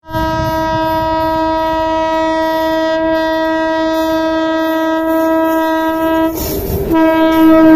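Oncoming Indian Railways electric locomotive's horn sounding one long blast for about six seconds, breaking off briefly and then sounding again louder as the locomotive nears, over the steady rumble and clatter of the train's wheels on the track.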